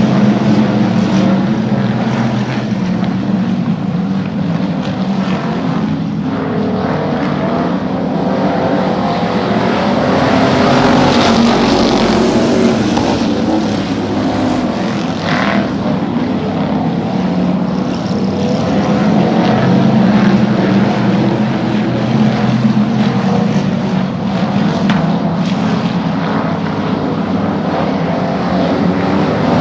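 A pack of hobby stock dirt-track race cars running together on the oval, many engines blending into one steady drone that swells louder and fades as the pack passes close.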